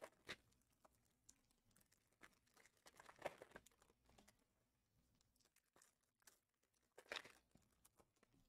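Faint crinkling and rustling of card-box packaging as it is handled, in a few short spells: once right at the start, again about three seconds in and once more about seven seconds in, with near silence between.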